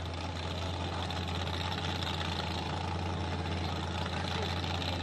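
Vehicle engine idling, a steady low drone that does not change.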